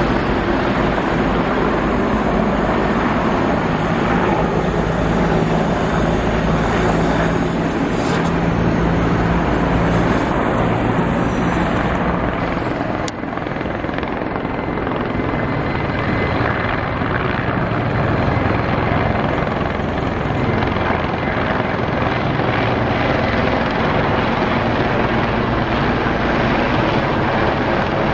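Mil Mi-24 attack helicopter flying overhead, its rotor and twin turbine engines making a steady, loud noise that grows as it passes closer near the end.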